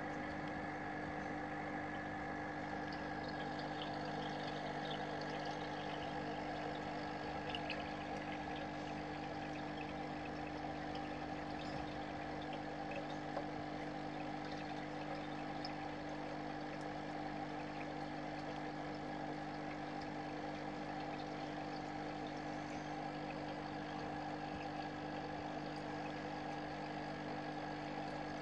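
Steady hum of an aquarium pump with running water in a shrimp tank, unchanging throughout.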